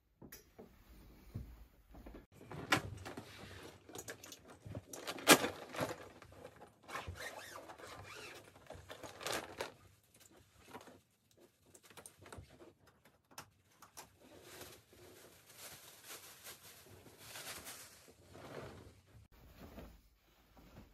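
Dress shirts and their dry-cleaner plastic wrap being handled: irregular rustling with light clicks and knocks, and one sharp click about five seconds in.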